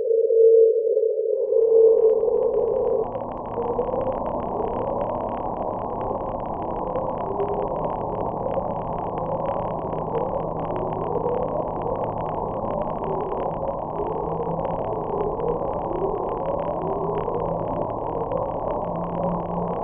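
Deep-ocean ambient soundscape: a steady tone that cuts out about three seconds in, giving way to a low hum and a stream of short rising chirps repeating about once a second over faint crackle.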